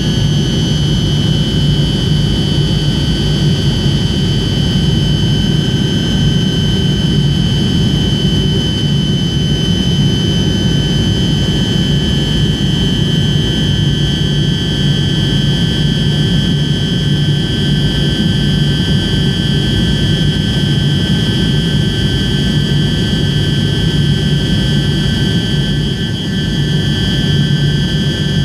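Cabin noise of a Tupolev Tu-154M on approach, heard from a window seat beside its rear-mounted Soloviev D-30KU-154 turbofans. It is a steady low rumble with several high whining engine tones over it, dipping slightly near the end.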